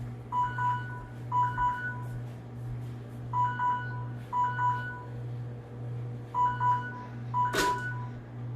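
Kitchen timer alarm beeping: short high beeps in clusters of two or three, coming in pairs of clusters about a second apart with pauses between, over a steady low hum. A sharp click comes about seven and a half seconds in, and the beeping stops.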